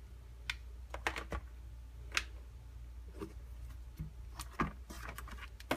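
Scattered light clicks and taps as cables and a plastic power adapter are handled and set down in a cardboard box, over a faint low hum.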